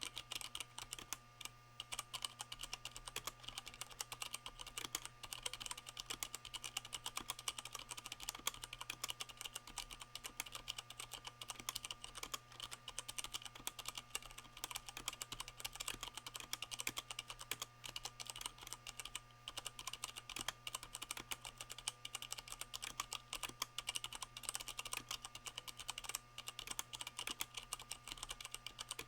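Continuous typing on a Leopold FC660M mechanical keyboard with Cherry MX Brown switches damped by O-rings: a fast, steady stream of soft keystroke clicks.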